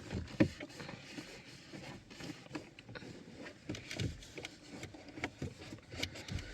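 Faint rustling with scattered light knocks and clicks: people shifting about and handling things inside a car.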